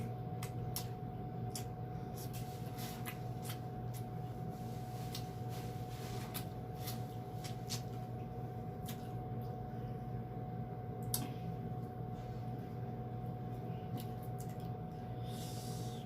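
Close-miked eating sounds, chewing corn on the cob: irregular small smacks and clicks from the mouth, over a steady electrical hum.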